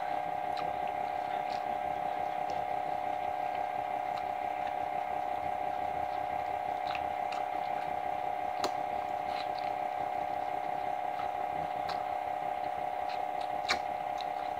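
A steady hum runs throughout, with scattered soft clicks from eating fried chicken by hand; the sharpest click comes near the end.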